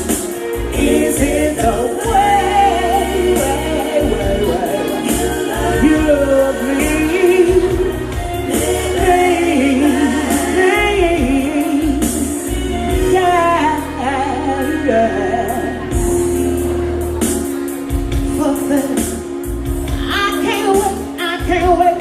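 A woman singing sliding, drawn-out vocal runs without clear words over live band accompaniment.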